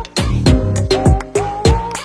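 Background music with a steady electronic beat: deep kicks that drop in pitch, crisp hi-hat ticks and a synth line that glides up to a held note.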